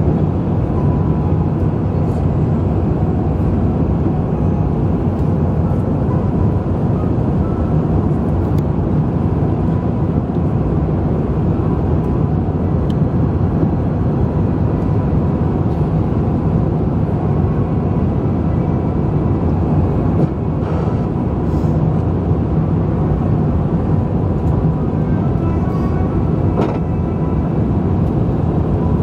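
Steady engine and airflow noise inside the cabin of an Airbus A350 on approach with its flaps extended, from its Rolls-Royce Trent XWB engines and the air rushing past the fuselage.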